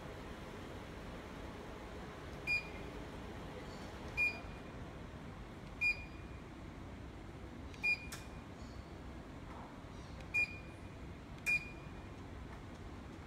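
Electric ceiling-mounted clothes drying rack beeping as its remote-control buttons are pressed: six short, high beeps, irregularly spaced one to two and a half seconds apart.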